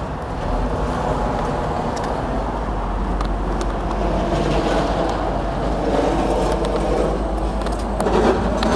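Steady road traffic noise, a continuous rumble with no single vehicle standing out.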